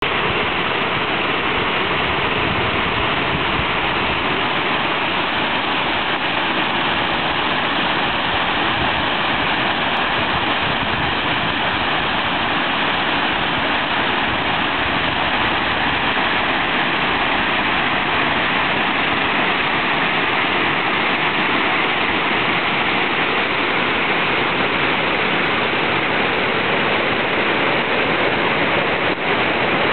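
Steady rush of water from a sewage drain pouring into the Ganges, a constant even gush with no pauses.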